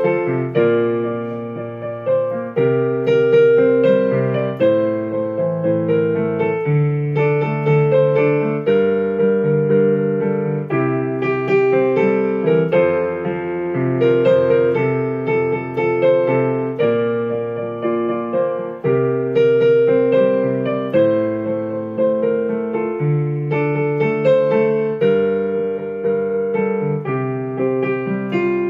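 Digital piano playing a hymn tune in block chords, the chords changing about once a second.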